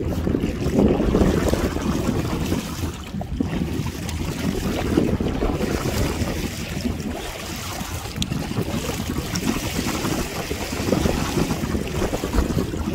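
Water sloshing and rushing against the hull of an inflatable kayak as a strong current carries it along, with wind buffeting the microphone. The noise rises and falls irregularly, with no steady motor tone.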